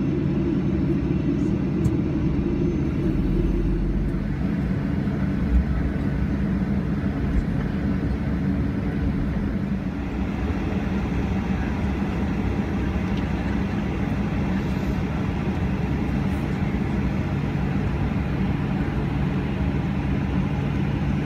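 Steady low cabin hum inside a Boeing 737-800 on the ground: engine and air-conditioning noise, even throughout, with a few steady low tones.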